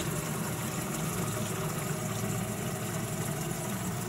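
Water from a garden hose running into the plastic tank of a rocket sprayer as it is filled, a steady rush with a low hum under it.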